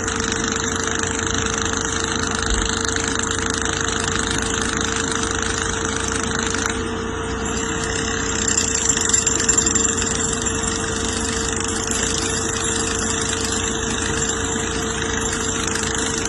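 Steady engine drone of machinery at the bridge construction works, a constant hum with one held tone over a rushing noise, running on without a break; the kind of night-time noise that nearby residents complain of.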